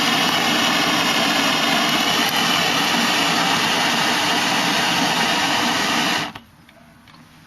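Alcohol burner flame burning with a steady, loud rushing noise, which stops abruptly about six seconds in.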